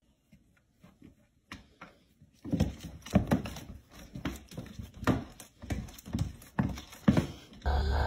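Two cats play-fighting on a hardwood floor: irregular thumps, knocks and scrabbling of paws and bodies on the boards, starting after a nearly silent stretch. Near the end it gives way to a steady low rumble of a car interior.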